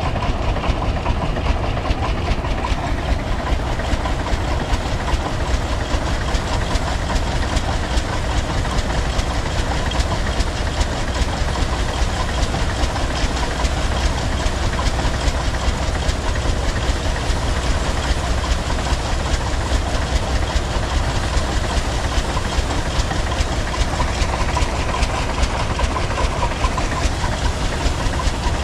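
Rumley OilPull tractor engine running steadily under belt load, driving a threshing machine (grain separator) that is threshing oat bundles, with a fast, even mechanical clatter over the engine's beat.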